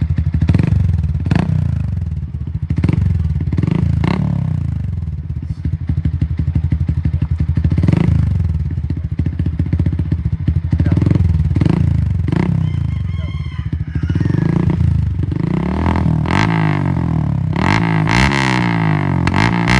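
Yamaha Sniper 150's single-cylinder four-stroke engine running through an aftermarket Akrapovic exhaust, idling and blipped with repeated short throttle revs.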